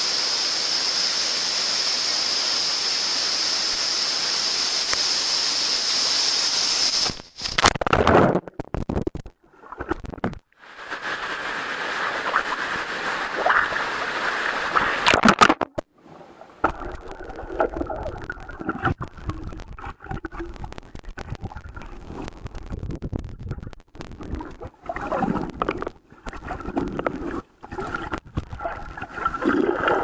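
Steady rush of a waterfall for about seven seconds, then the sound turns muffled and choppy as the microphone goes under water: gurgling, sloshing water cut by brief dropouts.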